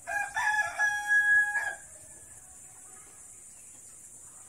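A rooster crowing once: a single held, steady-pitched call lasting a little under two seconds.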